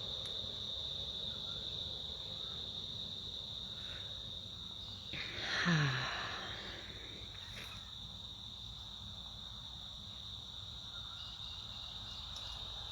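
Insect chorus, a steady high-pitched drone, with one brief loud sound that falls steeply in pitch about five and a half seconds in.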